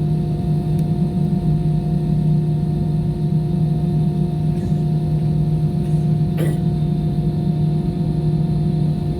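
Steady drone of an airliner's engines heard inside the passenger cabin: an even low hum carrying a few constant tones, with one short click about six and a half seconds in.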